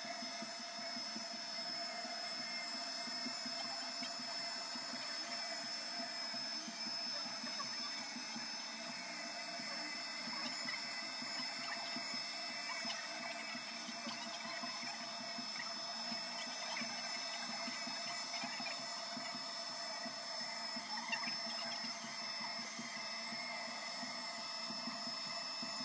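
Hutt DDC55 window-cleaning robot's suction fan running steadily, a vacuum-cleaner-like whine with an even hiss, holding the robot to the glass as it works across the pane.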